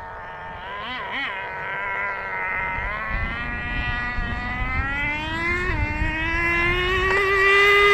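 HPI Nitro Star T-15 glow engine of a 1/10 nitro RC touring car running at high revs. Its whine climbs in pitch and grows louder as the car approaches, with brief throttle lifts about a second in and again near six seconds.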